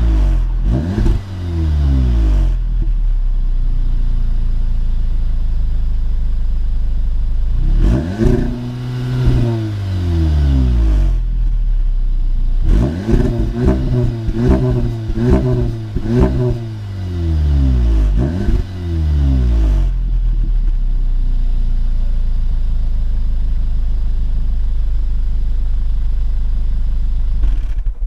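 Audi S3's turbocharged four-cylinder engine and exhaust revved while stationary: quick throttle blips at the start, one longer rev about eight seconds in, and a run of rapid blips in the middle, each falling back to a steady idle. The sound cuts off at the very end.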